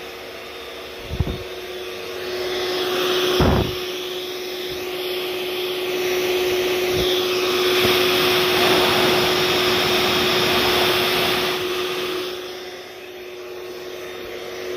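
A whooshing electric appliance motor runs for about ten seconds. It builds up a couple of seconds in and dies away near the end, over a steady hum, with a single thump about three and a half seconds in.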